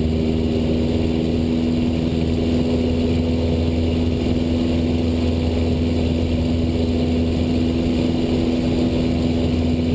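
Cessna 172's piston engine and propeller droning steadily in flight, heard inside the cabin, with an even hum that does not change.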